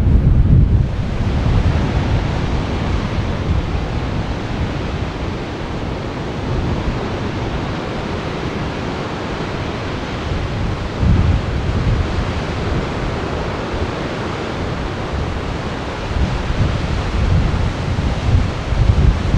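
Heavy sea surf washing and breaking against rocky cliffs, a continuous rushing noise, with gusty wind buffeting the microphone in low rumbles.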